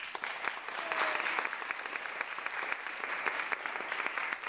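Audience applauding: dense clapping that begins to thin into scattered, separate claps near the end.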